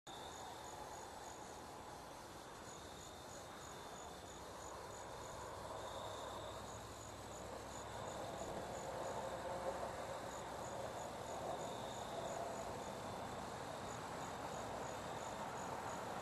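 Crickets chirping at night: high, quick chirps in short repeated runs, with a lower drawn-out trill coming and going, over a faint steady hiss.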